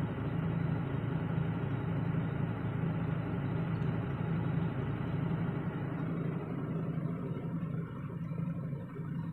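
Truck diesel engine idling with a steady low hum that gets a little quieter near the end.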